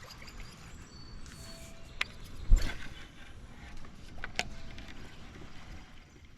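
A kayak being paddled through a shallow creek, with the paddle moving through the water. There are a few sharp knocks, and one loud thump about two and a half seconds in.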